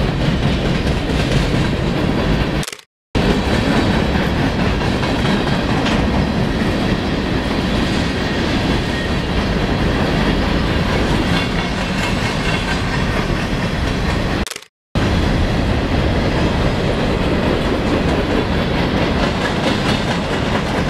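A freight train's cars, tank cars and covered hoppers, rolling past with a steady rumble and clatter of steel wheels on the rails. The sound drops out briefly twice.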